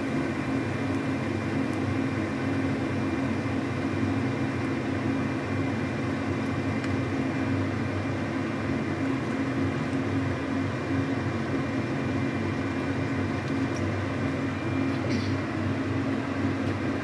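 A steady mechanical hum: a low drone with a faint, thin high whine above it, unchanged throughout.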